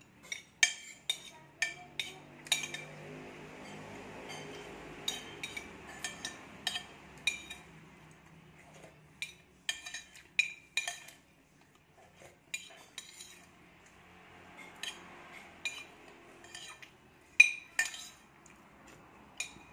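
Metal spoon clinking and scraping against a ceramic plate while someone eats, dozens of sharp, irregular clinks with a short ring, the loudest about three-quarters of the way through.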